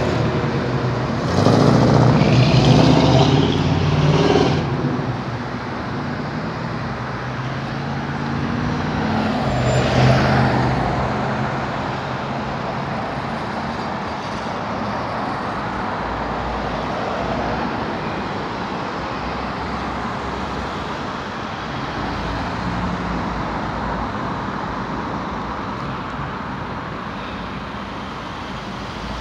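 Road traffic: cars driving past close by, loudest in the first few seconds and again about ten seconds in, over a steady hum of traffic.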